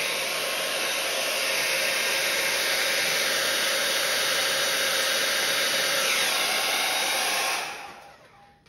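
Handheld hair dryer blowing a steady rush of air with a faint motor whine, used to push wet acrylic paint across a canvas in a Dutch pour. It is switched off near the end and dies away.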